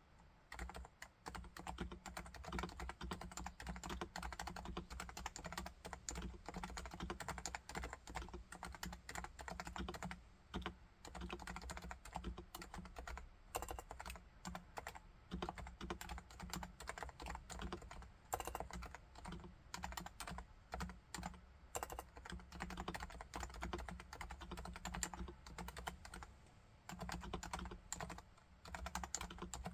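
Continuous fast typing on a Topre Realforce R2TLSA, its silenced 45 g Topre electro-capacitive keys giving soft, muted thocks, with a few short pauses.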